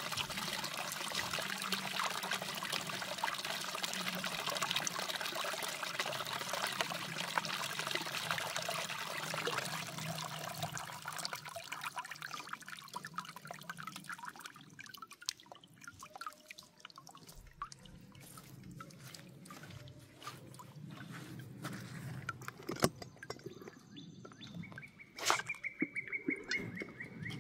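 Water trickling off a small gold-prospecting sluice into its tub just after the water feed is shut off. The trickle fades away about halfway through, leaving scattered drips.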